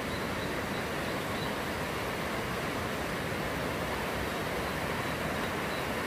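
Mountain stream rushing over rocks and through small rapids: a steady, even rush of water.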